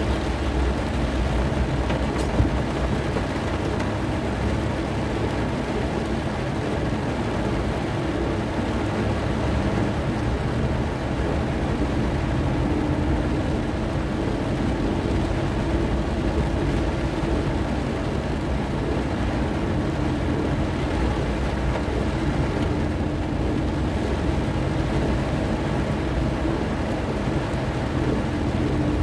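Steady low rumble inside a car's cabin as it drives through heavy rain on a flooded road: engine and tyre noise mixed with rain on the car's body and windscreen. There is one sharp click about two seconds in.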